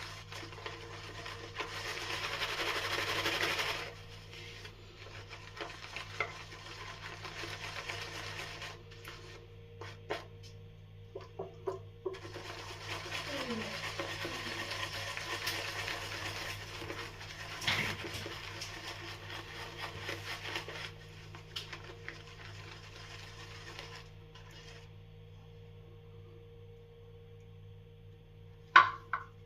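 Shaving brush being swirled and whipped in a bowl to build lather from Palmolive shave cream: a wet swishing in long stretches with short pauses between. A couple of sharp clicks near the end.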